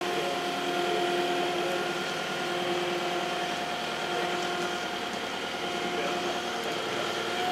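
Telehandler running under load, its engine and hydraulics giving a steady whine of several held tones as it lifts a heavy crate onto a lorry bed.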